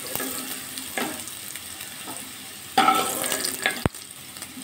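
Potato wedges sizzling in hot mustard oil in a kadai while a metal slotted spoon scrapes and knocks against the pan, lifting them out. A few clinks stand out, the loudest about three seconds in.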